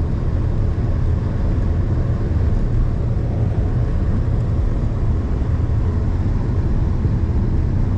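A loud, steady low rumble of noise, even throughout, with no distinct events.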